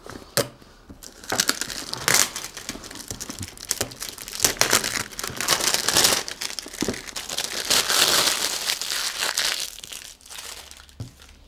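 Packaging being unpacked by hand: crinkling and rustling as the contents of a small cardboard box are lifted out and unwrapped, with a sharp click near the start.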